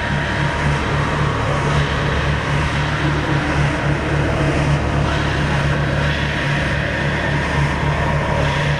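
Loud electronic drone played over a sound system: a low note pulsing several times a second under a steady dense wash of noise.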